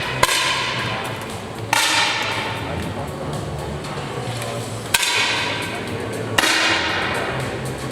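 Air rifle shots: four sharp cracks, spaced irregularly a second or more apart, each trailing a long echoing ring, over a steady low hum.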